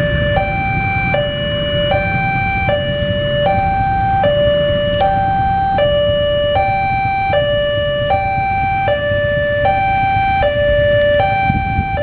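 Railway level-crossing warning alarm from the loudspeaker on the signal post: two electronic tones alternating high-low, each held about three-quarters of a second, the signal that a train is approaching. Beneath it is the low rumble of idling motorcycle and car engines.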